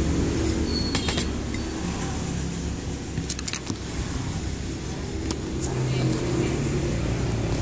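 Steady low hum of a motor vehicle engine running, with a few light clicks.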